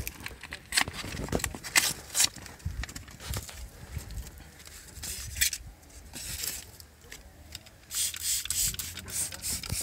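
Hand-sanding car bodywork: a blue sanding pad rubbed over the edge of a wheel arch in scratchy strokes, with a quick run of strokes near the end.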